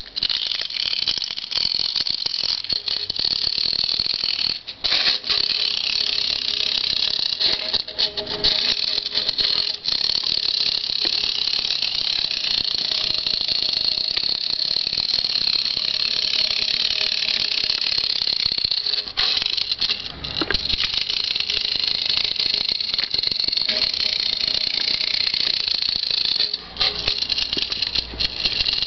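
Clockwork spring motor of a Schuco Varianto Limo 3041 tin wind-up toy car whirring as the wound spring runs down and drives the car, a high, busy buzz with a few short breaks.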